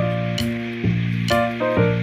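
Upbeat background music: pitched melody notes over a steady beat with crisp percussion ticks about twice a second.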